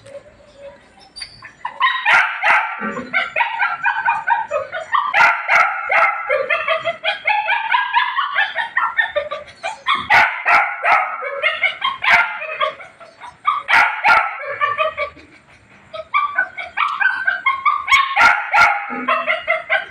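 A puppy yipping and whimpering in rapid, high-pitched calls, with a pause of about a second near the three-quarter mark after a quiet start.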